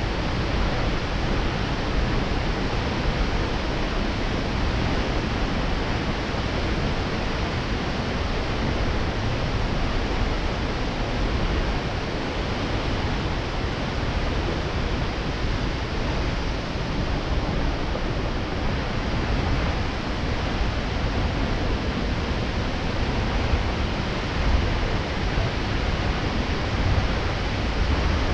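Aberdeen Falls, a tall waterfall, plunging into its pool: a steady, unbroken rush of falling water with a deep rumble underneath.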